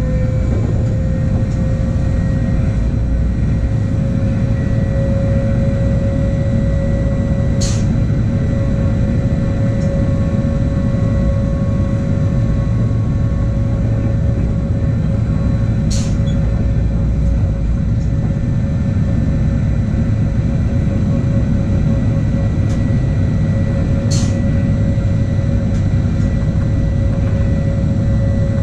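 Regional train running at steady speed, heard from the driver's cab: a continuous low rumble of wheels on track with a motor whine that rises slightly in the first second and then holds one pitch. Sharp high ticks come about every eight seconds.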